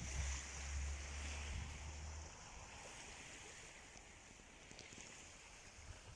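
Small waves lapping and washing onto a sandy beach on a calm sea. It is loudest in the first couple of seconds and then settles into a soft wash. A low steady rumble runs through the first two seconds or so.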